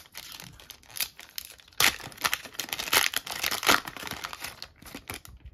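Foil-lined trading card booster pack wrapper being torn open and crinkled as the cards are pulled out, a dense irregular crackle that grows loudest from about two seconds in.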